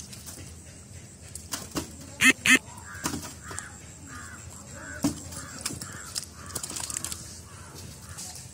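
Birds calling: two loud harsh calls a little over two seconds in, then a quick run of softer, evenly spaced calls. Under them are scattered wet clicks and slaps of fish and feet in the mud.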